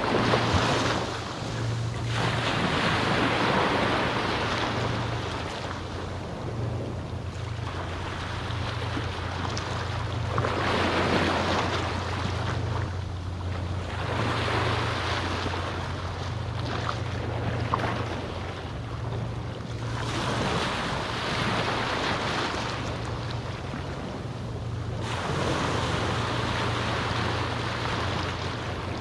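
Small waves on a calm sea washing onto the beach, each one swelling and fading every few seconds, over a steady low rumble.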